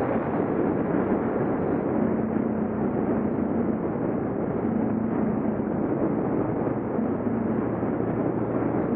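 Suzuki DR650's single-cylinder four-stroke engine running steadily while riding, under a heavy rush of wind noise on the microphone.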